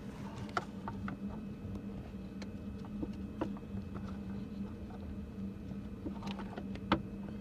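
Hand work on car parts: a few sharp clicks and light knocks, spaced irregularly, with the sharpest near the end. A steady low hum runs underneath.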